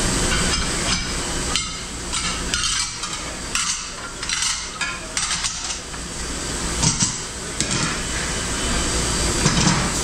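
Ceramic plates clattering and knocking together as they are handled, stacked and sorted into dish racks, with a run of quick knocks in the middle. Underneath is a steady hum of kitchen machinery.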